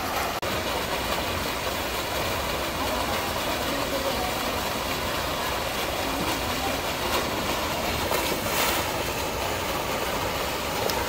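Steady rush and splash of water gushing out of a water slide's outlet into a swimming pool, with a brief louder splash about eight seconds in as a rider lands in the pool.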